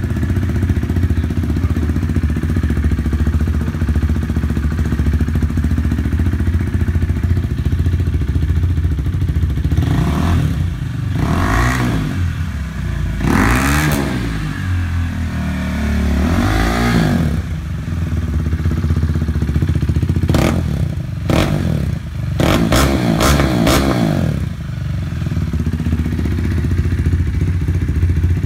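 KTM 390 Duke's single-cylinder engine running loud with no exhaust fitted, idling steadily. It is revved up and back down three times around the middle, then blipped several times in quick succession, and settles back to idle.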